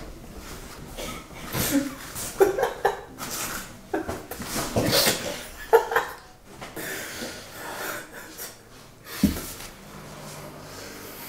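Two people's stifled laughter and breathy snickers, in short irregular bursts, held back to keep quiet.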